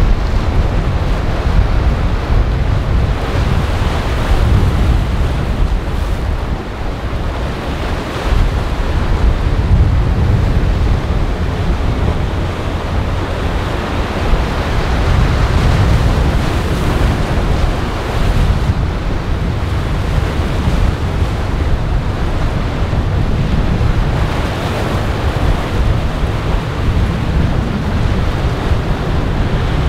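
Wind buffeting the microphone over the steady wash of waves and surf in a choppy inlet.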